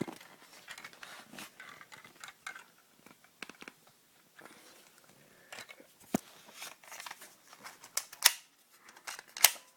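UKARMS G10 full-metal spring airsoft pistol being handled: a run of small mechanical clicks and rattles, with three sharper, louder snaps about six, eight and nine and a half seconds in.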